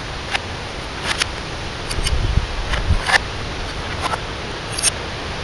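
Scattered sharp clicks and clinks of broken plastic casing and glass pieces from a smashed CRT television being sifted by hand, over a steady hiss, with a low rumble about two to three seconds in.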